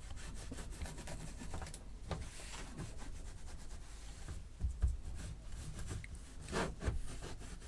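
A cloth rubbing and wiping over the plastic top case of a Commodore Plus/4 in irregular back-and-forth strokes, a few of them louder in the second half.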